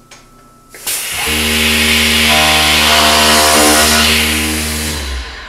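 Maka SM7 swing-chisel mortiser running and cutting a mortise into a wooden board. It is a loud machining noise over a steady motor hum that starts about a second in and dies away near the end.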